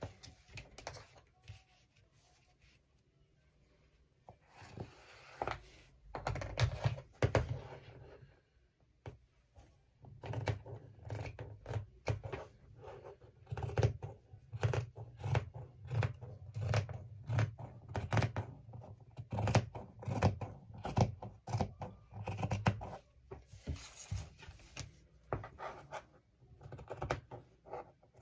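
Fabric scissors snipping through velvet, a steady run of cuts about two a second from about ten seconds in. Earlier, a few short bursts of scratching as the cutting line is marked along a ruler.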